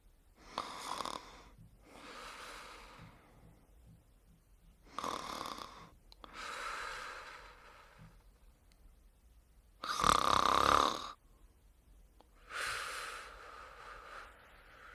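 A sleeper snoring in slow, regular breaths: every four to five seconds a rasping snore followed by a softer breathy one, the loudest snore about ten seconds in.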